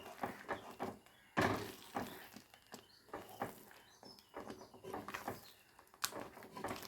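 A spoon stirring and scraping thick rava halwa in a pan, in short irregular strokes, with the halwa near done and pulling together off the pan.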